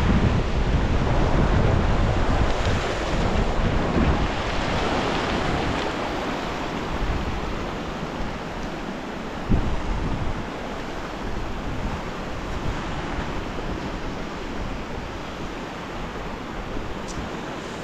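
Steady rush of a glacial meltwater stream, with wind buffeting the microphone in heavy low gusts over the first few seconds before easing. A single dull thump about nine and a half seconds in.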